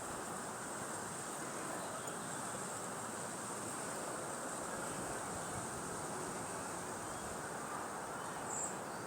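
Steady outdoor background hiss with a constant high-pitched chirring of insects.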